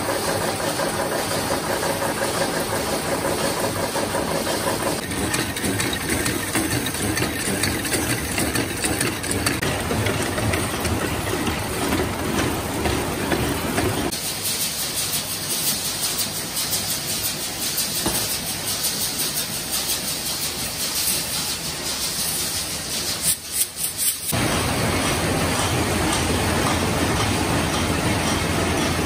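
Screw-making machines running, a continuous mechanical clatter and hum of metal-forming machinery. The character of the noise changes abruptly a few times as different machines take over, about 5, 14 and 24 seconds in.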